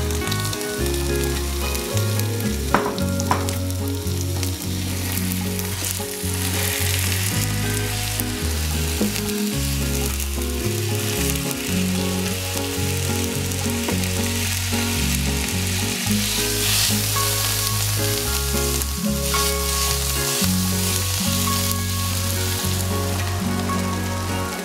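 Minced beef frying with chopped spring onion in a hot nonstick pan, sizzling steadily as it is stirred and broken up with a wooden spatula, with a few sharp scrapes early on. Low steady tones shift in pitch underneath.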